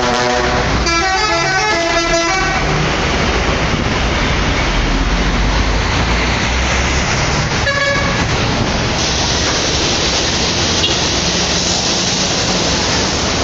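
Bus 'telolet' horn, a multi-tone musical air horn, playing a quick run of stepped notes for about two and a half seconds, then a second short blast a little past the middle. Loud steady background noise throughout.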